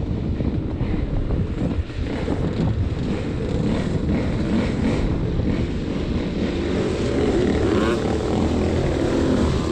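Quad ATV engine running with its pitch rising and falling as it is throttled, over a low rumble.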